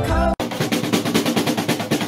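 White domestic duck stamping its feet on a snare drum head, beating out a fast, uneven run of snare taps like a drum roll. It starts suddenly about a third of a second in.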